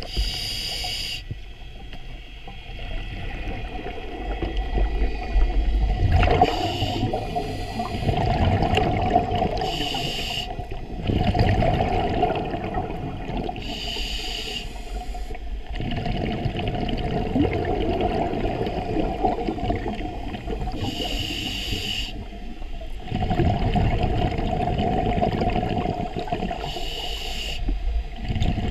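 Scuba regulator breathing heard underwater: about six short hissing inhalations through the second stage, spaced several seconds apart, each followed by a longer stretch of bubbling exhaust.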